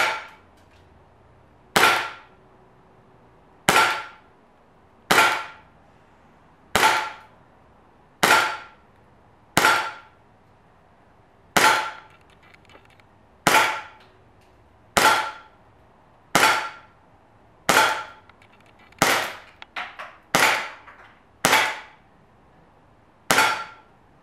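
Umarex Heckler & Koch USP CO2 blowback airsoft pistol firing 6 mm BBs: about sixteen single shots in a slow, steady string, roughly one every second and a half. Each shot is a sharp CO2 pop with the metallic cycling of the blowback slide. The last shot empties the 18-round magazine and leaves the slide locked open.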